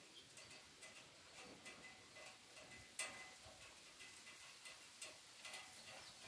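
Near silence, with faint scattered ticks and a sharper click about three seconds in.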